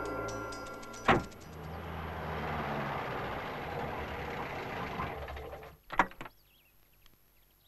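A car door slams shut about a second in, then the car's engine and tyres run steadily as it drives. The sound stops near six seconds and two more door slams follow in quick succession as it pulls up.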